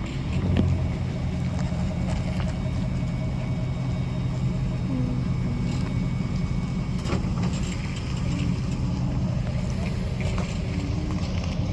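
Truck engine running steadily at low revs, with a few faint knocks and clicks.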